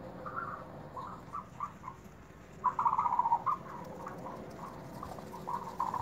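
Flock of young ostrich chicks calling: repeated short chirps, with a louder cluster of calls about halfway through.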